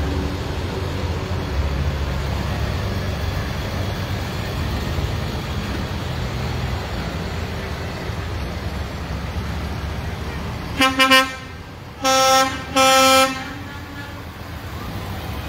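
Heavy tow truck engines running as the trucks pass, then a truck horn sounds: three quick short toots about eleven seconds in, followed by two longer blasts.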